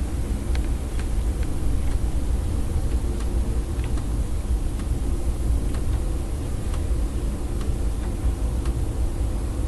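Blizzard wind buffeting the microphone: a steady low rumble over a hiss of wind-driven snow, with faint scattered ticks.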